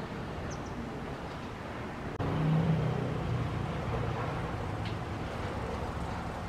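Street traffic ambience: a steady low road rumble. From about two seconds in, a louder, low engine hum from a nearby vehicle starts and slowly fades.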